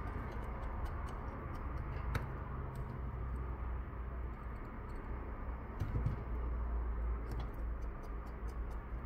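Small, irregular ticks and clicks of a precision screwdriver turning the pentalobe screws in the bottom edge of an iPhone 12 Pro Max, over a low steady hum.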